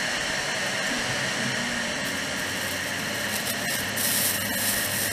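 ORTUR Laser Master 2 blue diode laser engraver running a job on a glass on its Y-axis rotary roller: a steady whir from the laser module's cooling fan with a faint motor whine, a little louder about four seconds in.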